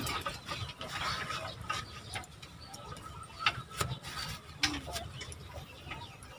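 Scissors snipping the denim cloth of a hen turkey's back protector: a few scattered sharp clicks, with rustling from the cloth and feathers being handled.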